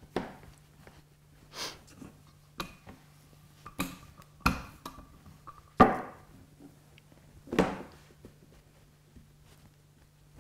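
Dough being handled and rolled on a wooden countertop: a string of irregular knocks and thuds as the dough sheet is dropped and turned and a wooden rolling pin is set down and rolled, over a faint steady low hum.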